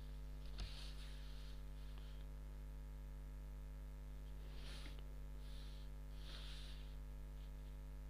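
Faint steady electrical hum. A light tap about half a second in, then a few soft brief scratches of a pencil and plastic ruler on pattern paper as a line is drawn.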